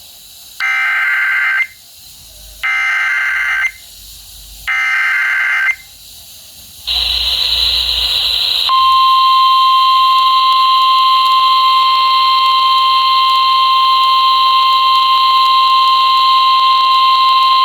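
Emergency Alert System alert over FM radio: three one-second bursts of warbling data tones (the SAME header), then, from about nine seconds in, a single steady attention tone. It announces a severe thunderstorm warning.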